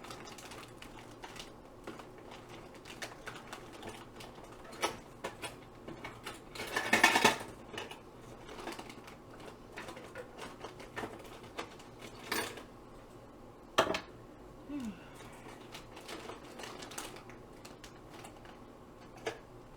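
Rummaging through craft supplies and tools: scattered clicks and knocks of small hard objects being moved, with a louder clattering rattle about seven seconds in.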